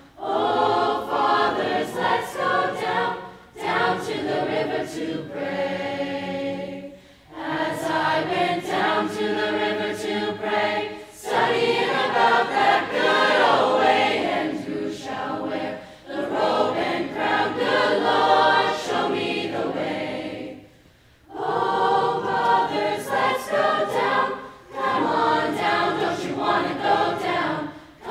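Mixed high school choir singing in harmony, in phrases a few seconds long with brief breaks between them; some phrases hold long chords.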